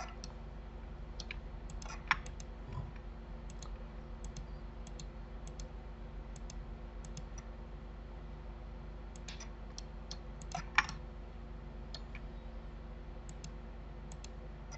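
Scattered clicks of a computer mouse and keyboard, some in quick little runs, with a louder single click about two seconds in and another about two-thirds of the way through, over a steady low electrical hum.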